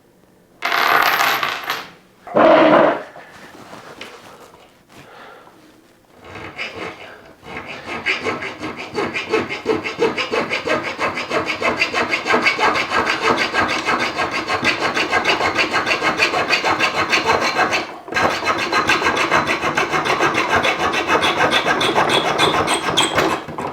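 The metal-saw blade of a Victorinox Swisschamp pocket knife is rasping through a chain link in rapid, steady back-and-forth strokes, pausing briefly about two-thirds of the way through. Two short handling noises come before the sawing, which starts about six seconds in.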